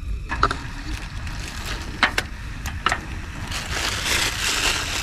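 Wind rumbling on the microphone, with a few sharp clicks. From about three and a half seconds in comes a crinkling rustle of plastic as sachets and a plastic bag are handled.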